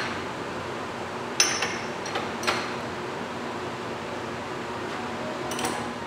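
Sharp metal knocks and clinks from handling the sheet-steel drawer and panel of a wire cutting machine stand: a hard one about a second and a half in, a few lighter ones over the next second, and a couple more near the end.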